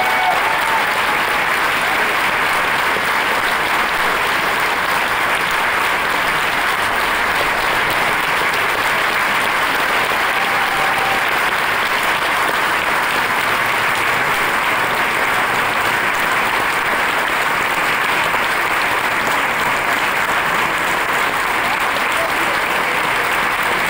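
A large audience applauding, a dense, steady clapping that doesn't let up.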